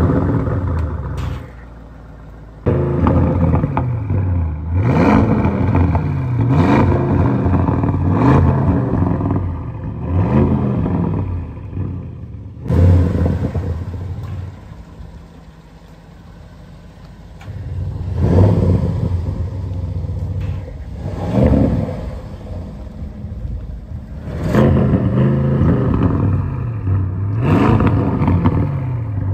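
Audi C8 RS7's twin-turbo V8 exhaust, fitted with a 034Motorsport Res-X resonator delete, being revved while stationary. It is loud at first and settles to idle about two seconds in. Then comes a series of quick throttle blips, each a rising and falling rev, broken by a sudden change about 13 seconds in, after which further blips follow.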